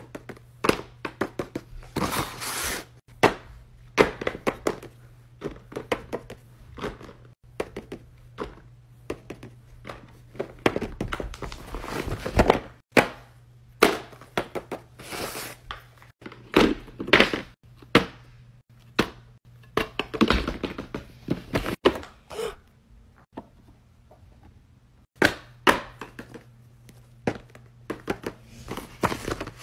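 Fidget toys being set down, pushed and picked up on a paper sheet over a rug: irregular light thunks and taps, with paper rustling and sliding between them.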